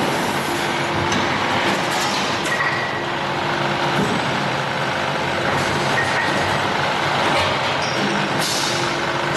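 Rotor aluminium die-casting machine running: a loud, steady dense hiss of machinery, with a few short, sharper air hisses and light clicks as its pneumatic cylinders work.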